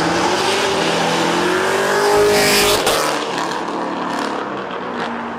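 A car accelerating hard past on a flyby pull, its engine note rising in pitch as it revs, loudest about two and a half seconds in as it passes, then fading away.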